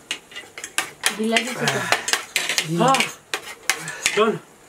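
Forks and spoons clinking and scraping against plates as two people eat noodles fast. Three short wordless voice sounds that rise and fall in pitch come a little after a second in, around three seconds and near the end.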